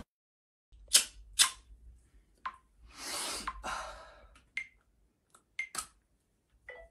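A few sharp clicks and taps from small objects being handled, two louder ones close together about a second in, then scattered lighter clicks and a short rustle.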